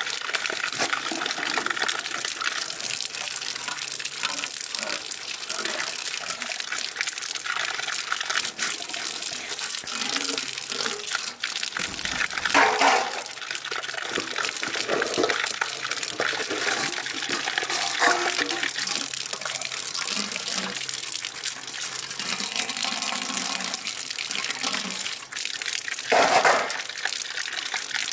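Water running steadily, with two brief louder sounds, one about twelve seconds in and one near the end.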